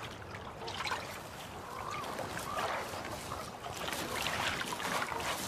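Water splashing and sloshing, with many small irregular splashes and drips.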